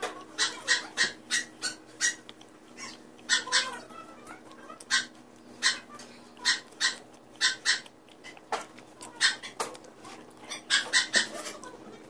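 Close-up mouth sounds of eating: chewing with wet lip smacks, an irregular run of short, sharp smacks several a second.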